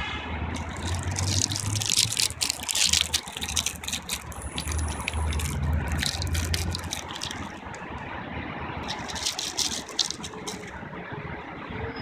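Steady low rumble of distant city traffic, with bursts of crackling rustle over the first few seconds and again near ten seconds.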